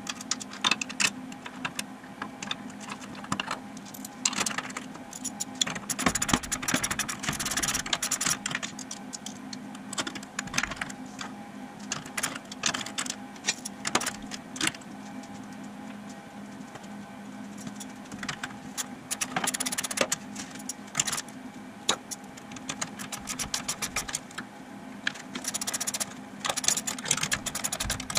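Metal hand tools and hardware clinking and rattling as parts are fitted by hand, with irregular clicks and several runs of quick ticking. A steady low hum runs underneath.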